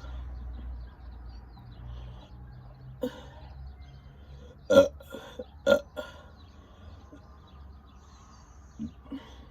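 A woman burping from the gas of the Sprite she has just gulped. There is a smaller burp about three seconds in, two loud burps about a second apart near the middle, and short ones near the end.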